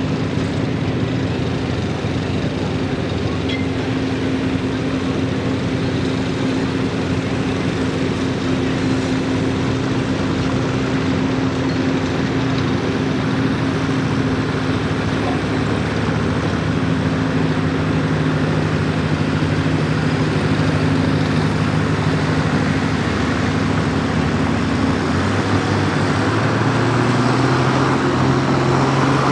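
International 1066 tractor's turbocharged six-cylinder diesel running steadily under load while hitched to the pulling sled. Its engine speed and loudness rise near the end as the pull begins.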